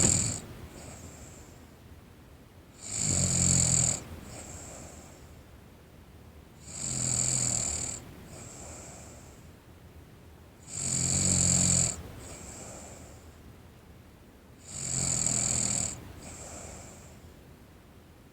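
A sleeping teenage girl snoring: four loud snores about four seconds apart, each followed by a fainter breath.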